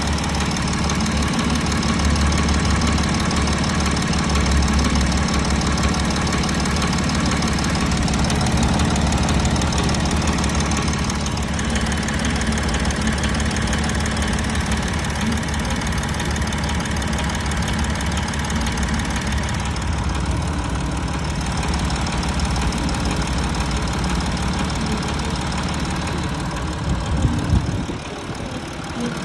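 Audi Q7 4M's CMVD 3.0 TDI V6 diesel idling steadily, with a knock from the timing chain tensioner.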